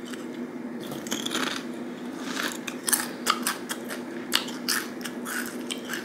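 A person crunching and chewing a potato chip close to the microphone: a quick, irregular run of crisp crackles, starting about a second in, over a steady low hum.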